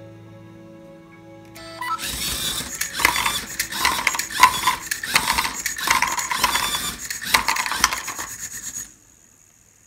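LEGO Mindstorms EV3 colour sorter running: its motors, gears and tread conveyor making a loud plastic clatter with many clicks, starting about two seconds in and stopping suddenly near the end.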